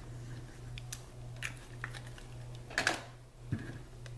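A few scattered light taps and clicks of paper pieces being handled and pressed together on a tabletop, the loudest a quick pair near the end, over a steady low hum.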